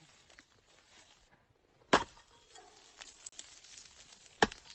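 Two sharp knocks, about two and a half seconds apart, over a faint background.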